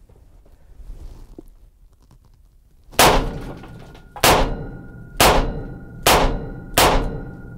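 Five shots from a 2-inch stainless Taurus .357 Magnum snub-nose revolver firing .38 Special rounds, starting about three seconds in and coming roughly a second apart. Each shot rings on in the small room.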